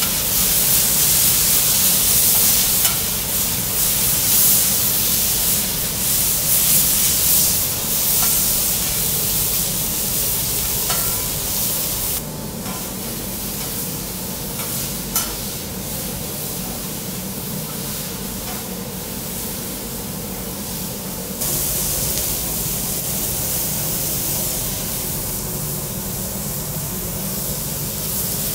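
Food sizzling and frying on a hot teppanyaki iron griddle, a steady hiss with a few light clicks. The sizzle drops in level about twelve seconds in and comes back up about nine seconds later.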